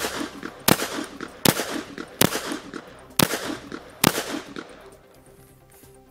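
Kel-Tec PMR30 .22 Magnum semi-automatic pistol fired six times, about one sharp crack every three-quarters of a second, each with a short echo. The shooting stops about four seconds in.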